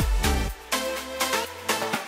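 Background electronic music with a steady beat and heavy bass. About a quarter of the way in, the bass drops out, leaving a few sparser hits.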